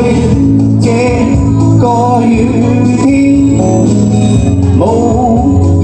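A male–female vocal duet sung through handheld microphones over a music accompaniment. The sung lines come in short phrases with brief instrumental gaps between them.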